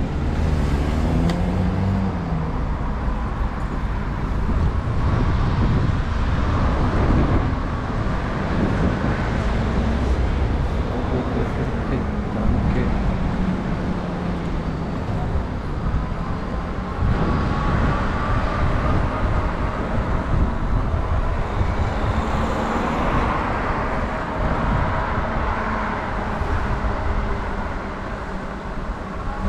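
City street traffic: cars and other motor vehicles passing with steady engine and tyre noise. Engine pitch rises and falls near the start and again in the middle.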